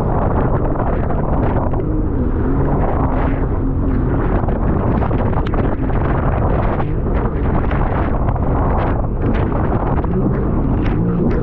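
Wind buffeting the microphone in steady gusts over the low, constant rumble of a small boat under way.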